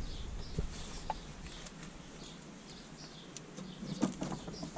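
Faint birds chirping in the background, with a few light clicks and a soft bump about four seconds in as sausages are hung on wire hooks in a metal smokehouse cabinet.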